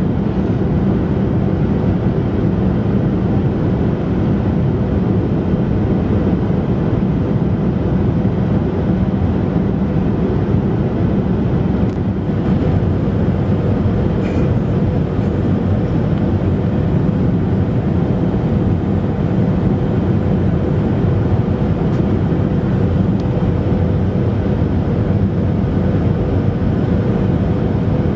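Steady cabin noise inside a Boeing 737-500 in descent: its CFM56-3 jet engines and the rush of air over the fuselage, with a faint steady hum.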